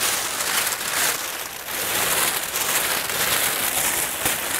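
Thin plastic bin liner crinkling and rustling as gloved hands grab, bunch and roll it up, a continuous crinkle that swells and eases.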